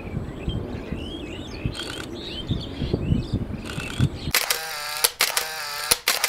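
Small birds chirping over a low outdoor rumble, with two short bursts of camera shutter clicks, about two and four seconds in. A little after four seconds the rumble and chirps cut off and a ringing tone with several sharp clicks takes over.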